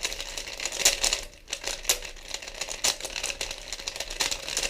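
3x3 picture Rubik's cube with meme images, turned by hand: its plastic layers clack in quick, irregular runs of clicks.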